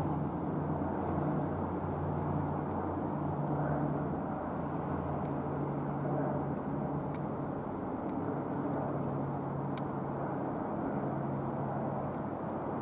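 Twin turboprop engines of a LET L-410 Turbolet droning steadily with a low hum as it flies past on approach to land.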